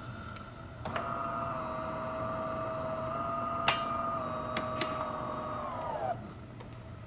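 DeLonghi Magnifica S bean-to-cup machine's motor running with a steady whine for about five seconds, with a few clicks over it, then winding down in pitch and stopping.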